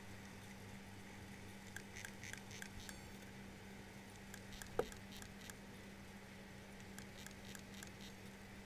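Failing hard drive running under test: a faint steady hum with a few light, irregular clicks, one sharper click just under five seconds in, the clicking that marks the drive as dead.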